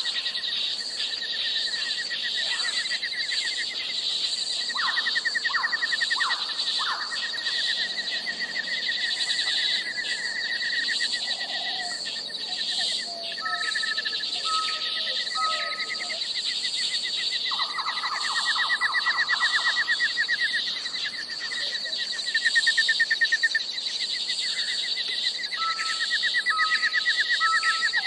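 Tropical rainforest ambience: a steady high-pitched insect drone, layered with rapid chirping trills and short whistled bird notes that come in groups of three, twice.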